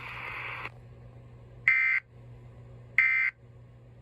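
Emergency Alert System end-of-message data tones: three identical short digital bursts about a second apart, closing the broadcast alert. A band of hiss cuts off under a second in, and a low hum runs underneath.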